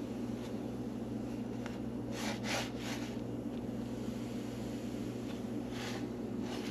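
Steady low machine hum with fixed tones, with a quick cluster of three short noisy sounds about two seconds in and another short one near the end.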